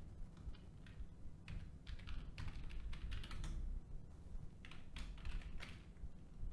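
Computer keyboard typing: short runs of keystrokes with brief pauses between them as text is entered into a form.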